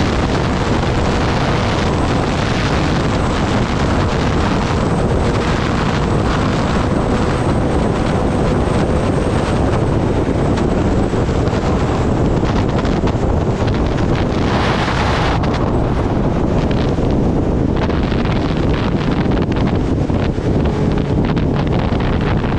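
Heavy wind noise buffeting the microphone of a moving Kawasaki Ninja ZX-10R sport bike, with the bike's inline-four engine and road noise running steadily underneath. A brief, sharper hiss comes about fifteen seconds in.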